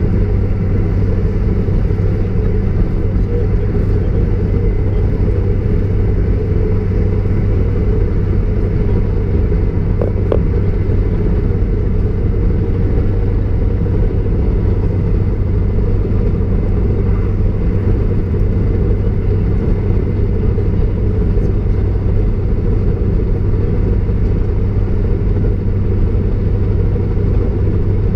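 Class 153 single-car diesel multiple unit running steadily at speed, heard from inside its rear cab: an unbroken low rumble of the underfloor diesel engine and the wheels on the rails. A single brief tick sounds about ten seconds in.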